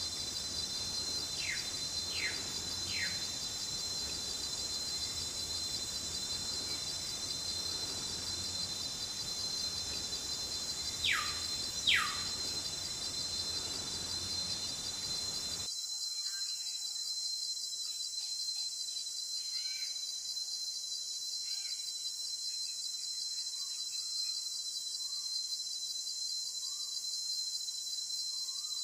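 A steady, high-pitched insect chorus trilling without a break. A bird gives short falling whistles three times near the start and twice about eleven seconds in, with fainter chirps later. A low background hiss drops out about halfway through.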